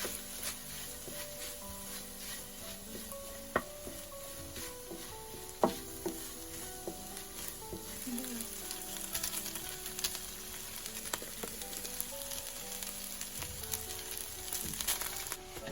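Fried rice sizzling in a hot pan while it is stirred and tossed, with a steady crackle and the scrape of the utensil. Two sharp clacks come about three and a half and five and a half seconds in.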